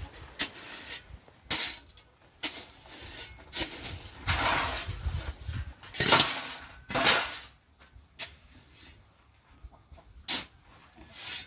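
Steel shovel scraping into a gravel pile and flinging the stones onto the ground to spread them out, the gravel layer of a hand mix for concrete. It makes a string of short, gritty scrapes, with longer rattling rushes of gravel about four and six seconds in.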